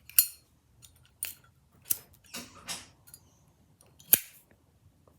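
High polish chrome Zippo lighter being handled: a run of sharp metallic clicks and short rasps, with the loudest snap about four seconds in, typical of its hinged lid being flipped open and snapped shut.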